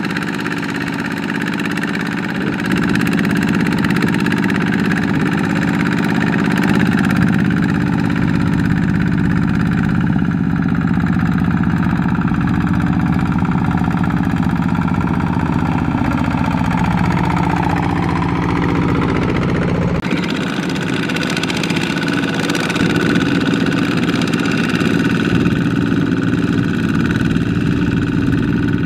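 Single-cylinder diesel engine of a two-wheel walk-behind tractor running under load as it drags a loaded trailer through deep mud. Past the middle its pitch drops as it labours, and a few seconds later the sound changes abruptly to another walk-behind tractor's engine running steadily.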